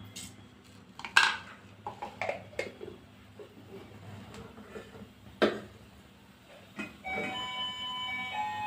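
Mustard seeds starting to splutter in hot oil in a frying pan for tempering: a few sharp pops, the loudest about one and five seconds in. Soft background music with held notes comes in about seven seconds in.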